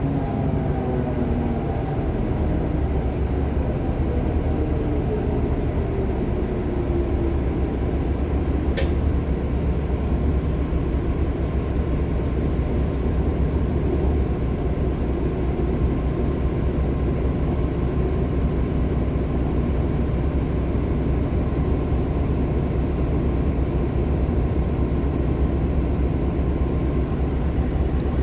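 2015 Nova LFS Artic hybrid bus with a Cummins ISL9 diesel and Allison H50 EP hybrid drive running: steady low rumble, with a whine that falls in pitch over the first few seconds as the bus slows. A brief click comes about nine seconds in.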